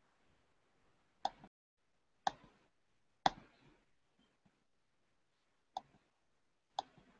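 Five short, sharp computer mouse clicks: three evenly spaced about a second apart, a pause, then two more a second apart.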